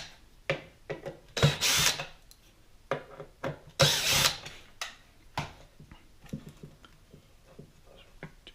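Cordless drill or power screwdriver running in two short bursts, about a second and a half and four seconds in, backing out screws to take the frame off a speaker, with clicks and knocks of handling between the runs.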